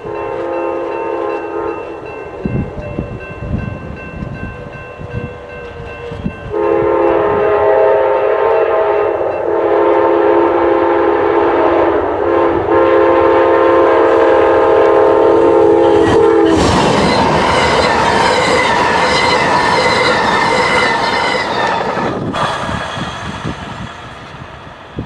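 Horn of a GE P42DC locomotive leading an Amtrak passenger train, sounding for a grade crossing: a blast that ends about two seconds in, then a long blast held for about ten seconds that cuts off as the locomotive passes close by. The horn sounds ghostly in freezing air. Then the passenger cars rush past with wheel clatter, fading near the end.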